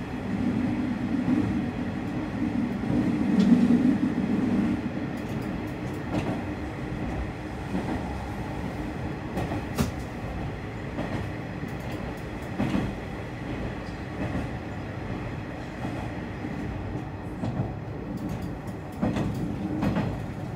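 Tarumi Railway diesel railcar running, heard from inside the passenger cabin: a steady low rumble with scattered sharp clicks of the wheels over the rails, loudest in the first few seconds.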